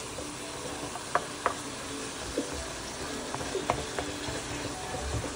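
Ground beef with bell peppers and onion sizzling in a frying pan while a plastic spoon stirs and breaks it up, with a few short taps and scrapes of the spoon against the pan.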